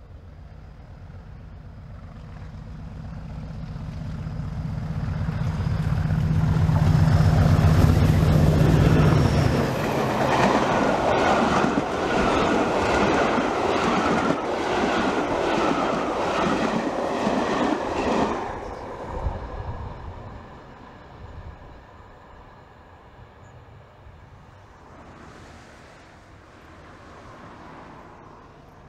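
English Electric Class 40 diesel locomotive 40145, with its 16-cylinder engine, approaching and passing at speed. The engine note builds to a peak and then drops away abruptly as the locomotive goes by, followed by the coaches' wheels clattering rhythmically over the rail joints for several seconds before the sound fades.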